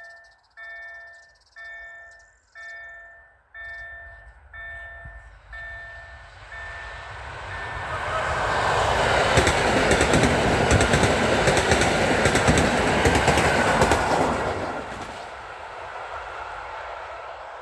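Level crossing bell ringing in even single chimes about once a second, fading into the noise of two coupled EN57AL electric multiple units. The train passes with a rising rush of wheels and rapid clicking over the rail joints that is loudest for about five seconds midway, then dies away.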